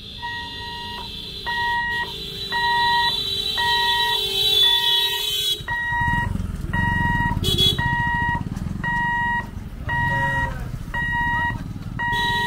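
Level-crossing warning alarm beeping steadily, a bit more than once a second. The electric boom barrier's motor whines as the barrier lowers and cuts off suddenly about halfway through, once it is down. Then motorcycle engines run close by.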